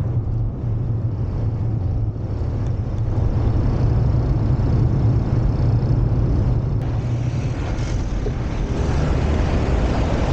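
Steady low rumble of idling heavy diesel engines.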